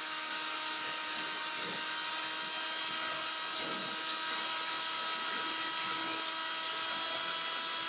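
Power drill spinning a mixing rod in a can of thick POR-15 fuel tank sealer. It runs at a steady speed, an even whirring hiss with faint steady whine tones.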